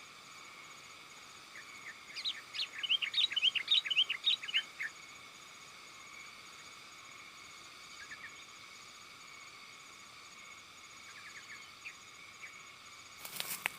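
Sooty-headed bulbul calling: a busy run of quick, rising chirps about two seconds in, lasting some three seconds, then a few short chirps later on. Underneath runs a steady, faint insect trill, and a brief noisy burst comes near the end.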